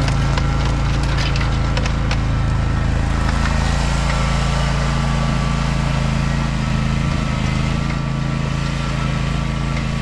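John Deere Z530R zero-turn mower's engine running steadily, with a scatter of sharp ticks in the first two seconds.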